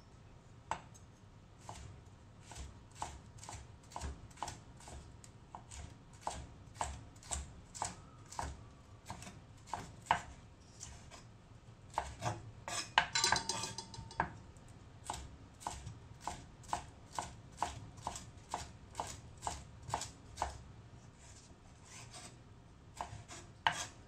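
Kitchen knife slicing red and yellow bell pepper into thin strips on a wooden cutting board: a steady run of crisp strokes knocking the board, about two a second. There is a quicker flurry of strokes about halfway through and a short pause near the end.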